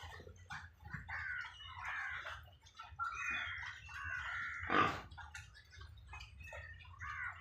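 Farm animals calling: a run of short high calls, with one louder, sharper call about five seconds in, over a low steady hum.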